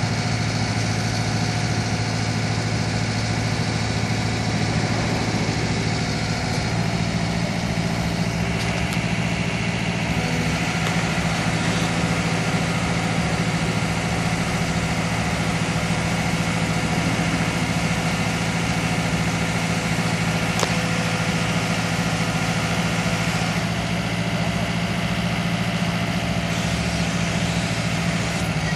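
Telescopic boom lift's engine running steadily, its sound growing brighter for a stretch in the middle and settling again near the end.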